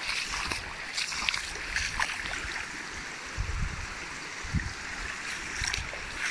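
Shallow water running along a trail, steady and rushing, with boots stepping and splashing through it and a few low thumps.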